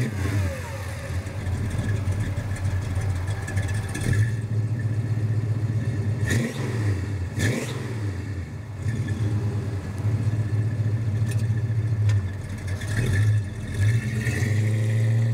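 Classic 1968 Dodge Charger's V8 running at a steady idle with a deep, even note, which changes briefly twice near the middle.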